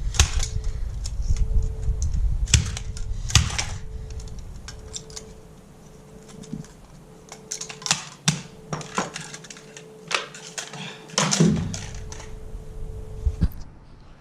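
Irregular clicks and knocks of a small plastic Timex alarm clock being handled and pressed. Under them a faint tone sounds in short on-and-off beeps and stops near the end.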